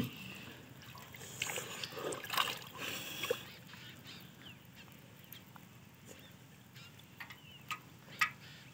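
Shallow pond water splashing and sloshing as hands grope inside a bamboo polo fish trap held down in the water: small scattered splashes and drips, busiest in the first few seconds, then sparser.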